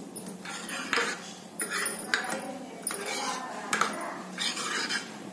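Metal ladle stirring a thin curry gravy in a pan, scraping and clinking against the pan several times, about once a second.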